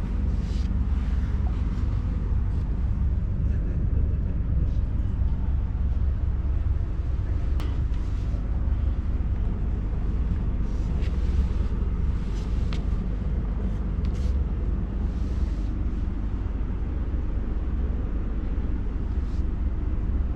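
Passenger train carriage running along the track: a steady low rumble of the wheels on the rails, with a few sharp clicks and short hissing gusts on top.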